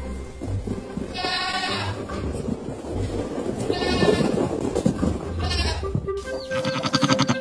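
Young goat kids bleating, three short high calls a couple of seconds apart.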